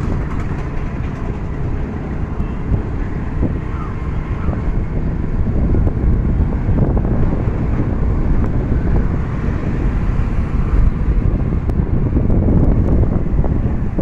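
Wind buffeting the microphone of a moving motorbike or scooter: a loud, steady low rumble, with the engine running beneath it.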